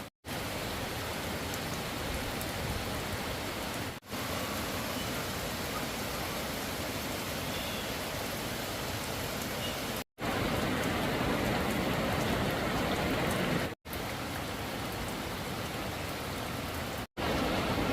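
Steady rushing water noise in several short clips joined by abrupt cuts, each with a split second of silence. It is louder and heavier from about halfway through.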